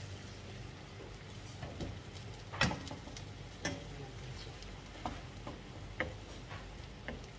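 Wooden spatula knocking and scraping against a frying pan while chicken pieces are stirred, about one knock a second with the loudest a little over two and a half seconds in, over the chicken sizzling in the pan.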